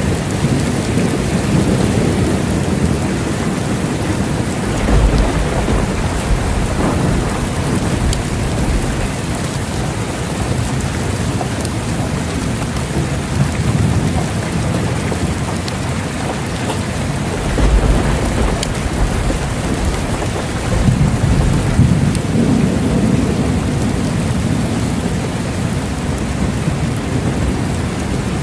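Steady heavy rain falling, with low thunder rumbling and swelling several times: about five seconds in, again near eighteen seconds, and a longer roll a few seconds after that.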